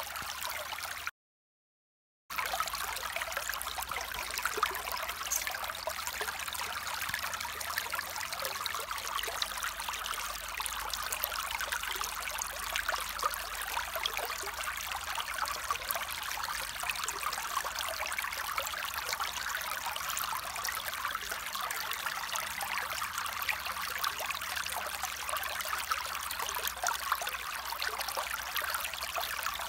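Shallow stream flowing over rocks, a steady watery rush with most of its sound in the middle and upper range. The sound cuts out completely for about a second, about a second in, then resumes unchanged.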